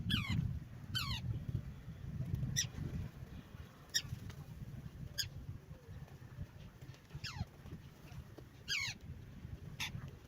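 A bird giving short, sharply falling calls, about eight of them, roughly one every second or so, over a low rumbling noise.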